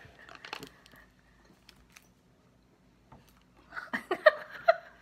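Faint chewing and mouth sounds of a jelly bean being eaten, then a few short bursts of voice or laughter about four seconds in as the bean is spat into a napkin.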